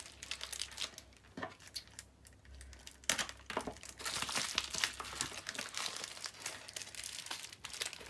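Plastic padded mailer crinkling and rustling as a cardboard tube is slid and worked out of it, with quick scratchy crackles. It is sparser in the first few seconds and busier from about three seconds in.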